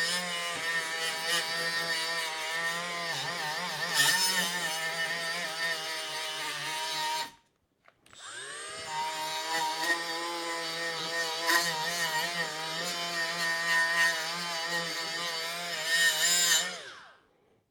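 Cordless die grinder with an abrasive pad running as a high-pitched whine while it grinds rust off a metal scraper. It stops about seven seconds in, spins back up a second later, and winds down near the end.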